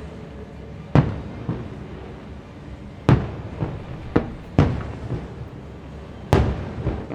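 Fireworks show bursts: about nine sharp bangs, each trailing off in a rolling echo. The loudest come about one, three, four and a half and six seconds in.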